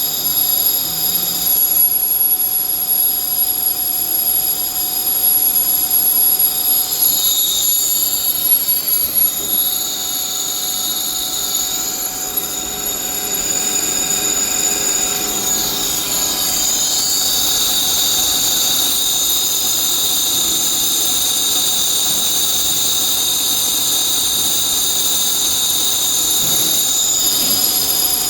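Metalworking machinery running with a steady, high-pitched whine made of several tones over a noisy hum; the pitch of the whine wavers about seven seconds in and again around sixteen seconds, then holds steady.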